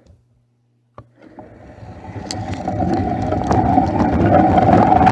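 Homemade tape-measure-powered car, heard from a camera riding on it: a click about a second in as it sets off, then the whir and rolling noise of its wheels and axle building steadily louder as it picks up speed across a smooth floor.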